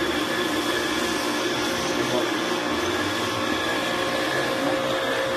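Pressure washer running steadily with a snow foam lance attached, its motor and pump giving a constant whine over the hiss of the foam spray.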